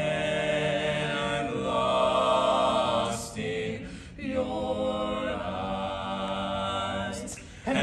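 Barbershop quartet of mixed voices singing a cappella in close four-part harmony: a long held chord, a short break about three and a half seconds in, then another long held chord.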